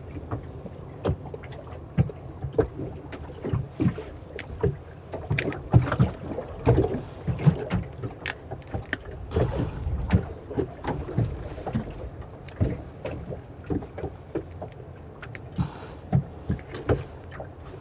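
A small fishing boat at sea: irregular knocks and clunks against the boat, with a couple of brief water splashes, over a steady low rumble.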